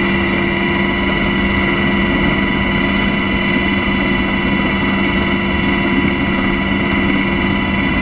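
Aircraft turbine engines running steadily while taxiing: a constant high whine over a low, even engine noise.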